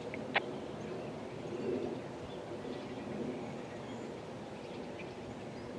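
Quiet outdoor background noise with a few faint chirps scattered through it, and one short sharp click about half a second in. No siren is sounding yet.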